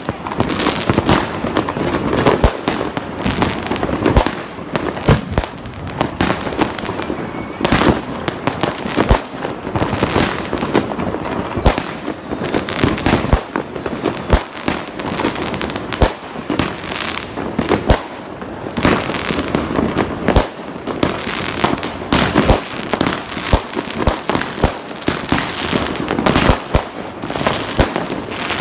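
Aerial fireworks going off thick and fast: a constant run of sharp bangs and crackling bursts with no pause.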